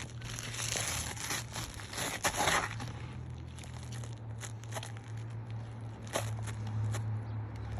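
Asphalt roof shingles being handled and worked into place: a rough scraping rustle for the first couple of seconds, then scattered light clicks and taps, over a steady low hum.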